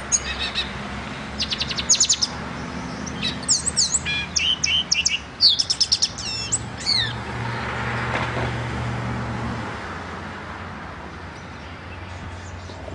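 Caged black-and-white pet songbird singing a burst of varied song: quick trills and clear whistled notes that slide in pitch, for about the first seven seconds. After the song stops, a vehicle going by swells and fades with a rushing sound.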